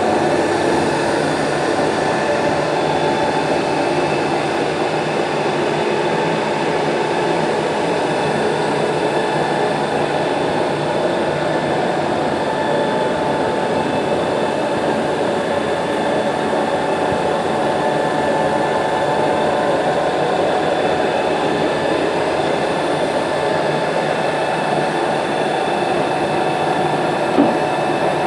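WMW Heckert FQS 400 CNC milling machine running a circular-pocket milling cycle with the spindle at 1800 rpm: a steady mechanical running noise with several steady whining tones. A short click near the end.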